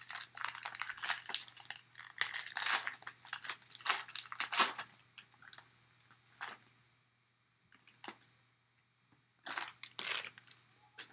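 Foil wrapper of a trading-card pack being torn open and crinkled by hand: a dense run of tearing and crinkling for the first five seconds or so, then a few scattered crinkles, a pause, and another brief rustle of the wrapper near the end.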